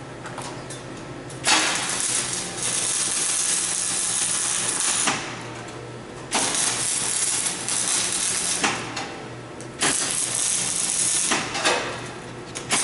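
Electric arc welding on steel rebar: the arc crackles and hisses in three runs of a few seconds each, with short pauses between them and a fourth run starting near the end. A steady low hum runs underneath.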